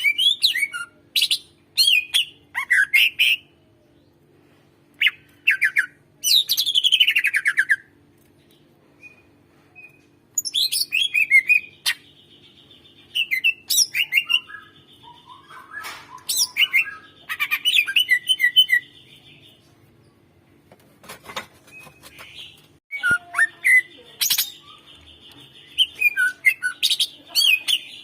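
Cucak ijo (greater green leafbird) singing a fast, varied song of sharp chirps, trills and downward-sliding whistles. From about halfway through it adds long held high buzzy notes, with short pauses between phrases, over a faint steady low hum.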